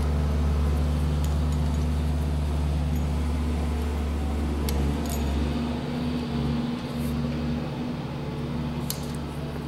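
A steady low mechanical drone from construction work going on nearby. Over it come a few light metallic clicks as the throttle and choke linkage wires and springs are fitted to a small-engine carburetor.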